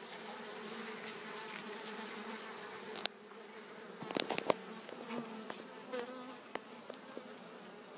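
Honeybees from a newly opened bee package buzzing in a steady hum. A sharp click comes about three seconds in, and a few more clicks follow about a second later.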